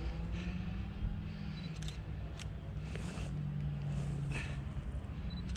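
Low steady rumble with a low hum that comes and goes, broken by a handful of sharp clicks and short rustles, as of clothing and hands shifting while holding a large fish.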